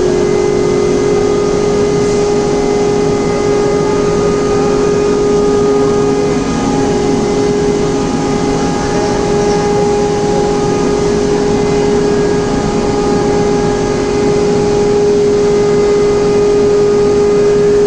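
Induction furnace and its fume-extraction dust collection system running: a loud, steady industrial hum with a constant mid-pitched tone and fainter overtones over a broad rushing noise.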